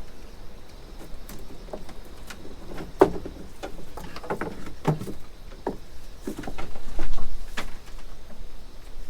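Strong typhoon wind buffeting the microphone, swelling into a heavy gust about seven seconds in, with scattered sharp snaps and rustles.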